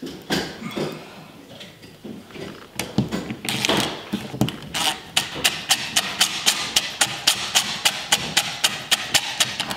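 A few knocks as a thermostat is pressed into its wall box, then a cordless drill-driver running the mounting screws in. From about halfway through comes a steady run of sharp clicks, about four or five a second.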